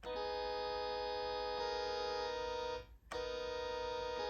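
Electronic keyboard holding a three-note chord of B, E-flat and A-sharp, imitating a Prime 920 train horn. It sounds as two long horn-like blasts, with a short break about three seconds in.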